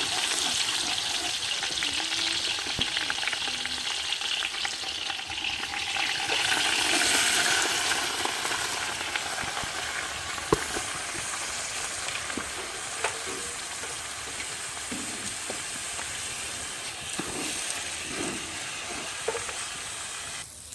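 Raw rice frying in hot oil in a pot, a steady sizzle, with a few sharp clicks partway through.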